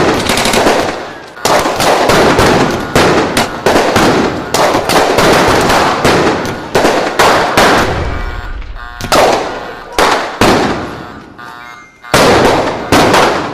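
Gunfire sound effect: rapid volleys of gunshots in bursts of several shots, each ringing out, with short pauses between volleys. Two brief pitched sounds come between the volleys, about two-thirds of the way through and near the end.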